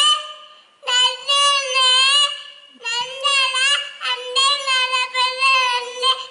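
A young child singing a rhyme into a handheld microphone, high-pitched and held on steady notes, in short phrases with brief pauses between them.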